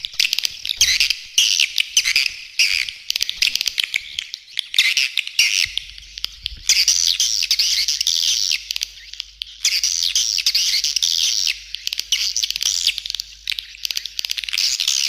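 A swiftlet colony's rapid, buzzy twittering chirps, dense and unbroken. This is a swiftlet calling-sound recording of the kind played from nest houses to lure swiftlets in.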